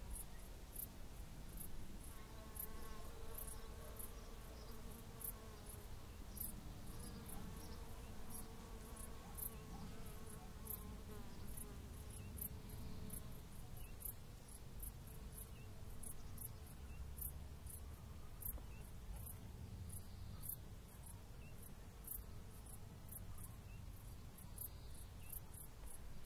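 An insect ticking in short, high chirps about twice a second, over a steady low rumble, with a faint wavering drone through the first half.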